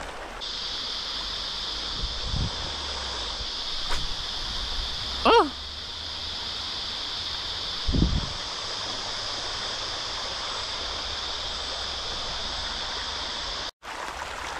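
Creek water running over rocks, a steady rushing hiss. A brief, loud, rising whistle-like sweep comes about five seconds in, and a low bump a little before eight seconds.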